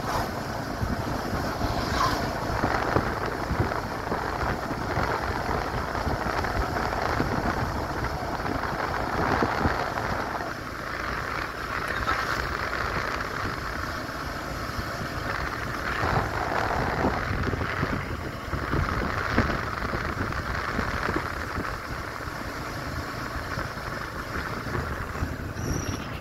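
Wind buffeting the microphone of a moving motorcycle, a steady rushing noise mixed with the bike's engine and road noise.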